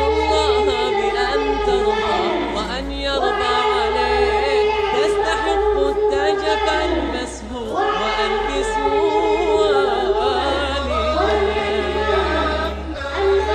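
An a cappella Islamic nasheed: layered voices singing in chorus, with long held and gliding notes.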